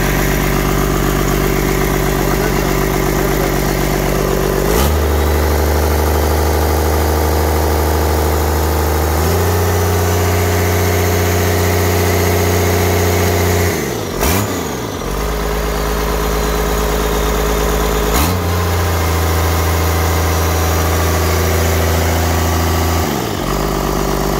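Cummins 5.9 inline-six turbo diesel running on a test stand during a run test. It starts at idle, is stepped up to higher speed twice, dips briefly and climbs again midway, is held raised again, and drops back to idle near the end.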